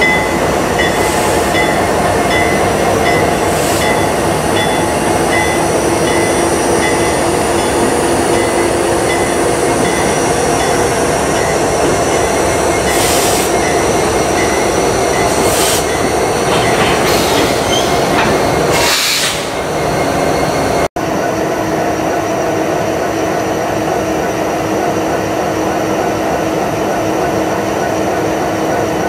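Diesel freight locomotives running close by as the train moves slowly past, a loud steady engine drone. Through the first several seconds a high tick repeats about twice a second. Past the middle come a few short high-pitched screeches, then after a break the steady drone of a locomotive's diesel engine.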